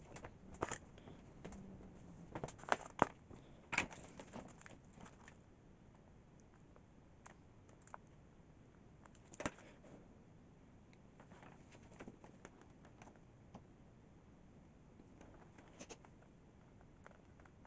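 Scattered light clicks and taps of soldering tools and wire being handled while soldering. They come in a cluster in the first few seconds, with one sharper tap about nine seconds in, then only faint ticks.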